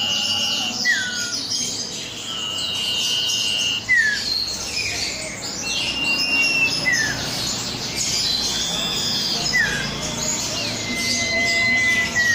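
Common iora (cipow) song: short downward-slurred whistles repeated about every two to three seconds and long level whistled notes, over a busy tangle of higher chirps and trills.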